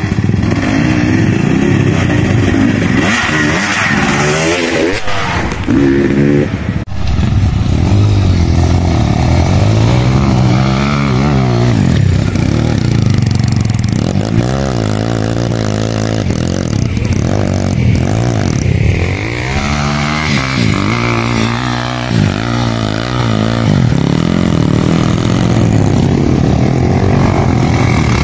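Trail motorcycle engines revving hard and repeatedly, pitch climbing and dropping as the bikes labour up a steep slope, with a sudden break about seven seconds in.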